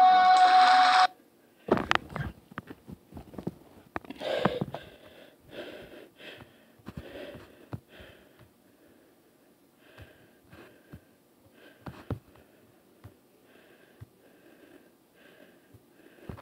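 Music with singing cuts off about a second in. Then a person breathes heavily and wheezily close to the microphone, in a run of short breaths, with a few knocks and bumps from handling.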